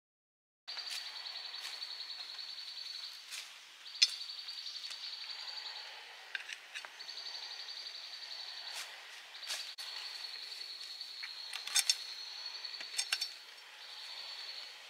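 Outdoor forest ambience that starts abruptly a moment in: a steady, high-pitched pulsing trill in stretches of a few seconds with short breaks, and scattered sharp clicks and snaps.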